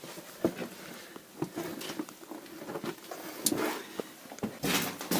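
Irregular scuffs, scrapes and light knocks of people moving through a tight cave passage, with boots and clothing rubbing on rock. The sounds are louder and closer together near the end.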